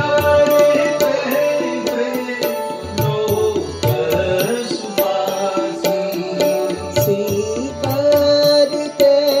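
Devotional music: a male voice singing with tabla strokes and steady held melodic tones.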